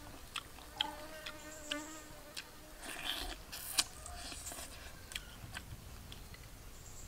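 Someone eating grilled fish with the fingers: chewing and lip-smacks with many small sharp clicks. An insect buzzes close by in short, wavering runs.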